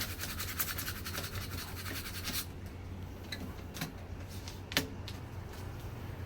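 Application paper being peeled off a vinyl window decal: a dense crackling for about two and a half seconds, then a few scattered clicks, with one sharper click about five seconds in.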